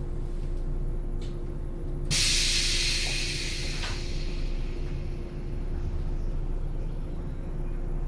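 Stationary JR 107 series electric train idling with a steady hum and rumble from its equipment. About two seconds in, a sudden hiss of released compressed air starts and fades away over a couple of seconds.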